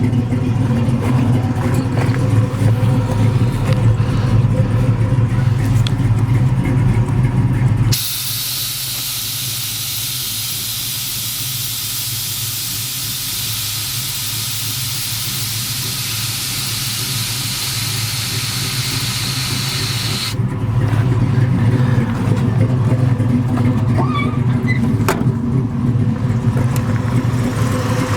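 Fuel-injected 355 small-block V8 idling, then about eight seconds in a loud, steady hiss of air dumping from the Boris air ride suspension bags for about twelve seconds as the car is lowered to the ground. The hiss cuts off and the idle carries on.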